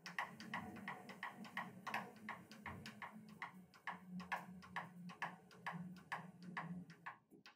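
Faint, fairly regular ticking, about three to four clicks a second, over a faint low hum, as the handwheel of a TRAK 1845SX CNC lathe is turned in tracking mode to send the axes home. The ticking stops shortly before the end.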